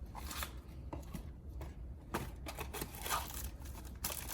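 Soft, scattered scrapes and light taps of a spoon measuring ground spice from its container onto the chicken, over a low steady hum.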